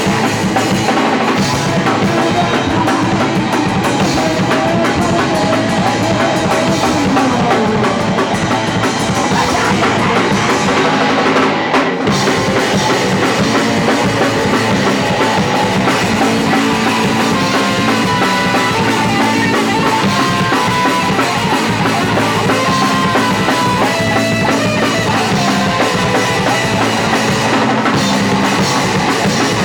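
Punk rock band playing live and loud, a drum kit with bass drum and snare driving under the other instruments, with a brief break about twelve seconds in.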